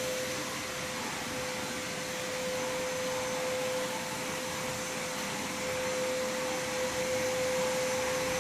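A small electric motor running steadily, pushing a rush of air with one constant hum.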